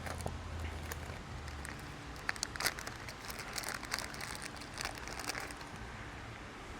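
Faint handling noise of small parts being worked by hand: scattered light clicks and crinkling as an O-ring is fitted onto a fuel injector, with a low hum in the first second or so.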